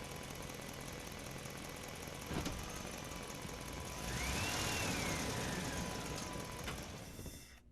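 Truck engine idling. About four seconds in it grows louder for a couple of seconds, with a hiss and a whine that rises then falls, then the sound fades out near the end.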